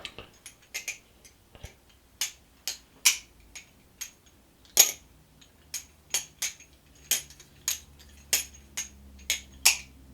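Flytanium Tatersong balisong (butterfly knife) being flipped: an uneven run of sharp metallic clicks and clacks as the handles swing round and knock together.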